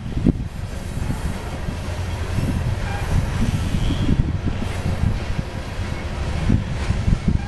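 Loaded coal train's gondola cars rolling past close by: a steady low rumble of steel wheels on rail, broken by irregular thumps as the wheels cross rail joints.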